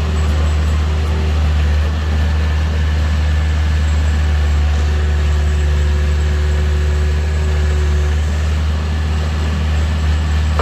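Long-reach excavator's diesel engine running steadily under work, a constant deep drone without breaks.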